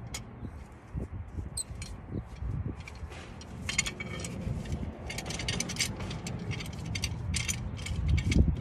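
Metal clinks and rattles of a clamp being fitted over a front brake caliper, setting it up to press the caliper piston back. The clicks come thickest in the second half, over a low rumble that is loudest near the end.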